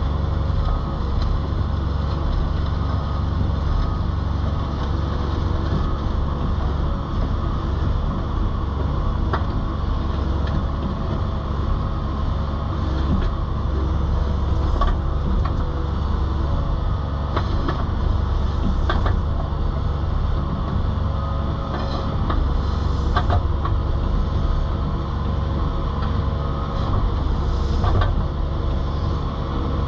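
Excavator diesel engine running steadily while its asphalt cutter cuts lines in an asphalt driveway, with scattered sharp cracks and crunches from the cutter in the second half.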